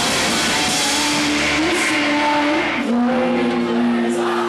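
Loud crowd cheering and screaming at a rock gig, with a few held tones that shift in pitch a couple of times over the din.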